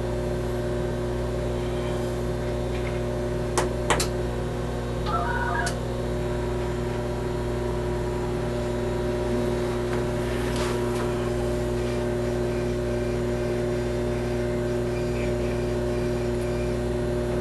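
Steady electrical mains hum from equipment in a control room. Two sharp clicks come a little over three and a half seconds in, followed by a brief burst of electronic beeping tones at about five seconds.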